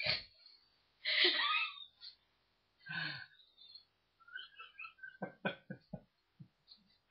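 A person's voice making short non-word sounds: a sharp gasp or exclamation, a longer drawn-out vocal sound about a second in, then a run of short choppy vocal sounds toward the end.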